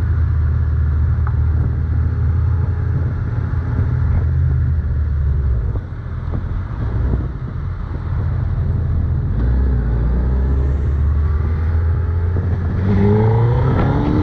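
Suzuki Hayabusa's inline-four engine running steadily under way. It eases off briefly about six seconds in, then rises in pitch as it accelerates near the end.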